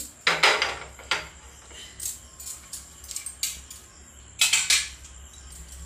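Metal kadhai clanking and scraping on the pan support of a gas stove as it is set onto the burner, with scattered metal clinks; the loudest clatters come just after the start and again about four and a half seconds in.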